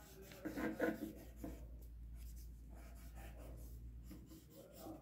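Graphite pencil scratching on sketchbook paper as outlines are drawn, with a louder stretch about a second in.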